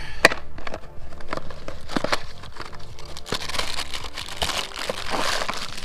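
Handling of a small cardboard parts box and the plastic bag of a new idler pulley: a string of sharp clicks and crinkling rustles, thickest past the middle, over background music.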